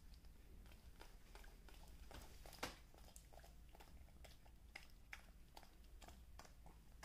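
Shih Tzu puppy chewing a piece of papaya: faint, irregular wet clicks and smacks, with one louder click about two and a half seconds in.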